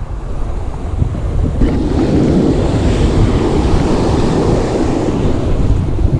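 Ocean surf breaking and washing up the beach, with wind buffeting the microphone as a steady low rumble. A louder wash of surf swells about two seconds in and eases off near the end.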